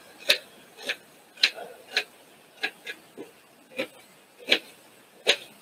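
Kitchen knife chopping an onion on a cutting board: sharp knocks of the blade hitting the board, about two a second and unevenly spaced.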